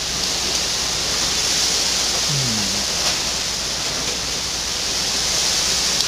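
Steady bright hiss over a low steady hum, with a brief faint low voice-like sound about halfway through.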